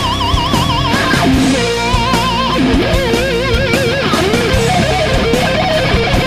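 Background rock music: a lead electric guitar plays sustained notes with heavy vibrato over a steady drum beat.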